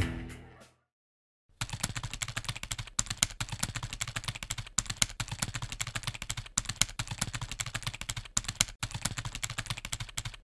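Music fading out, then after a short silence a fast, irregular run of typing keystrokes, a typing sound effect timed to text being written out letter by letter.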